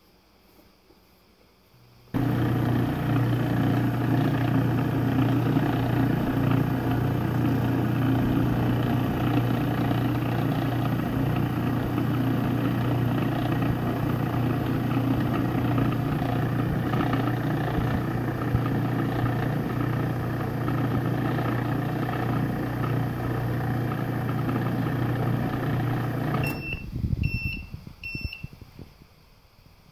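Breville Sous Chef BFP800XL food processor's 1200-watt motor running steadily as its blade churns a ground nut and seed mixture with honey and coconut oil into nut butter. It starts about two seconds in and stops a few seconds before the end, followed by three short electronic beeps.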